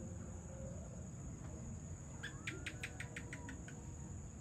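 Evening outdoor ambience: crickets or other insects keep up a steady high trill over a low background rumble. About halfway through, an animal gives a quick run of about nine sharp chirps lasting just over a second.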